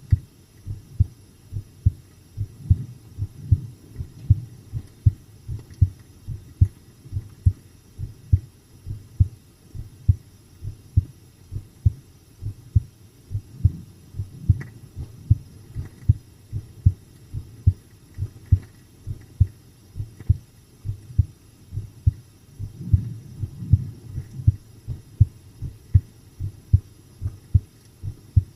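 Human heartbeat at a calm, steady resting pace: a regular run of paired low lub-dub thumps.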